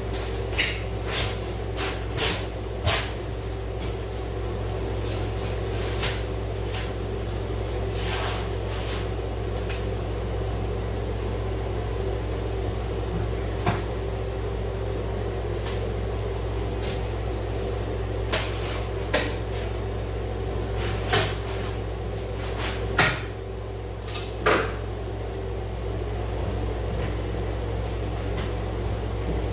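Scattered sharp clicks and knocks from hand work on a wooden-framed wall, about a dozen at uneven intervals, with one longer rasp about eight seconds in, over a steady low hum.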